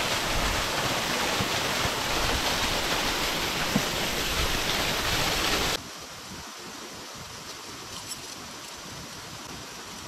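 Waterfall pouring steadily, a dense rush of water. About six seconds in it drops abruptly to a quieter, thinner rush.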